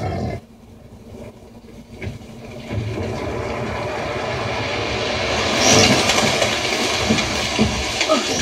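Film soundtrack effects played back through a Yamaha YSP-2700 sound bar. A short loud burst opens it, then a dense rumbling, rushing noise with low thumps builds from about three seconds in and is loudest near six seconds.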